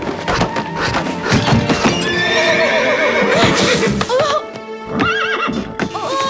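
Horse whinnying as it rears, with hooves clattering, over background music. A short crash about halfway through as the rider is thrown into a pile of hay.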